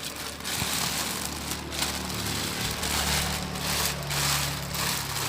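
Plastic fish-shipping bags crinkling and rustling as they are handled, swelling and fading in waves over a low steady hum.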